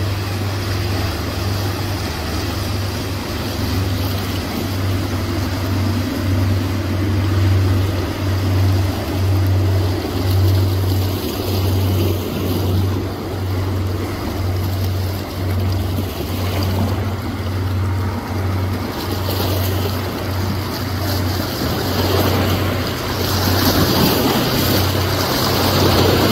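Outboard-motor fishing boats passing at speed, their engines running over the rush of spray and surf, with a steady low rumble throughout. The sound swells near the end.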